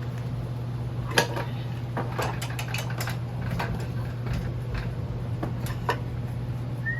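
Metal parts and tools clinking and knocking irregularly while a moped engine is unbolted and lowered from its frame, with one sharper clank about a second in. A steady low hum runs underneath.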